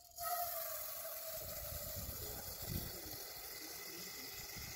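Water from an outdoor wall tap running into a metal pot, starting suddenly as the tap is opened and then running steadily.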